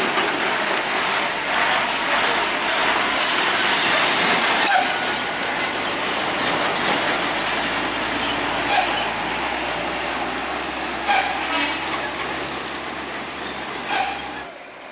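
Hino cargo truck's diesel engine running under load as it takes a hairpin bend and drives off, with a fuel tanker truck following. The engine sound is dense and steady, with a low drone that becomes clearer about halfway through. There are a few short, sharp noises, spaced a few seconds apart.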